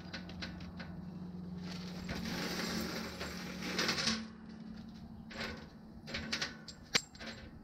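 Plastic bag of 7/16 stainless bolts, nuts and washers crinkling as it is handled and emptied, then the loose hardware clinking on the workbench in a few sharp clicks near the end. A faint steady low hum runs underneath.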